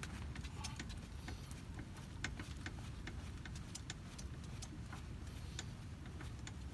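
Irregular light clicks and ticks from a car jack being cranked up under the car, over a steady low rumble.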